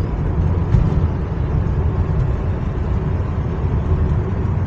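Inside a moving car's cabin: steady low engine and road rumble while driving at speed.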